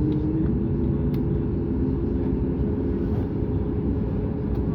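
Boeing 737-8200 airliner noise heard inside the cabin: a steady low drone with several held tones, from the aircraft's engines starting up, with a couple of faint ticks.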